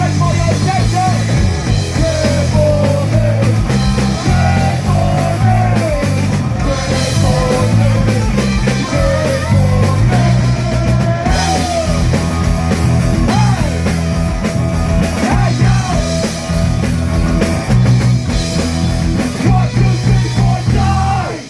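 Live rock band playing the song, with a steady, heavy bass and drum kit under a wavering melodic lead. The music breaks off abruptly at the very end.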